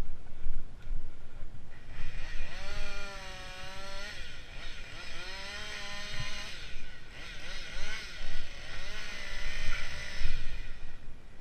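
Chainsaw cutting wood, its engine pitch dipping and recovering several times as the chain loads up in the cut. Under it is a low knocking and rumbling.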